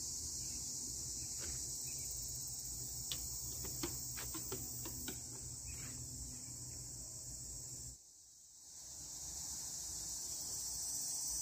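Steady high-pitched chorus of insects such as crickets, with a few faint ticks a few seconds in; the whole sound cuts out briefly about eight seconds in and fades back up.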